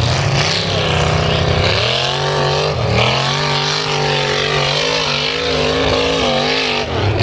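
Toyota off-road pickup's engine revving hard under load as it climbs a steep dirt hill, the revs rising about two seconds in and then wavering up and down.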